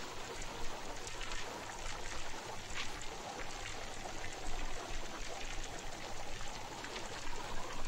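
Steady hiss with a few faint ticks: the background noise of an old film soundtrack, with no speech.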